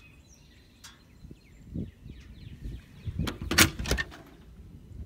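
Metal compartment door on a truck's utility service body being unlatched and swung open: a light thump, then a short clatter of knocks from the latch and door about three and a half seconds in.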